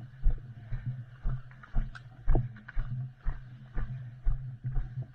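Footsteps of the camera wearer walking at a steady pace, about two heavy thuds a second, with gear rattling on each step.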